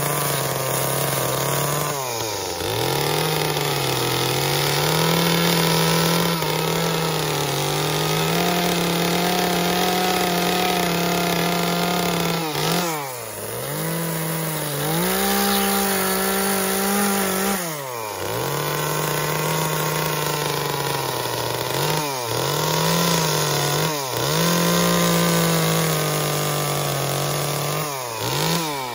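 Small gas chainsaw cutting into a wood carving, running at high revs. Its pitch drops and climbs back about six times as the throttle is let off and squeezed again.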